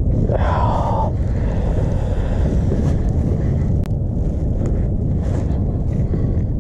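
Wind buffeting the microphone, a steady low rumble, with a short vocal sound about half a second in.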